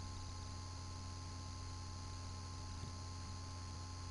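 Steady low electrical hum with background hiss and a faint high steady tone, unchanging throughout.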